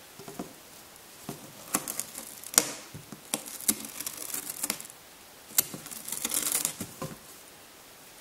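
Ragdoll cat scuffling and scratching inside a cardboard box: irregular cardboard taps and scrapes, in two bouts with a short lull about five seconds in.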